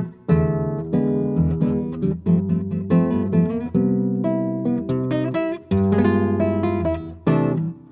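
Background music: acoustic guitar strumming and plucking chords in a steady rhythm.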